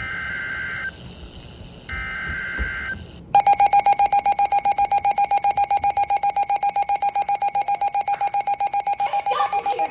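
Two short screeching bursts of EAS/SAME digital header data, then an electronic alert tone beeping rapidly, about six pulses a second. Together they are the opening of a new emergency alert, here a tornado warning.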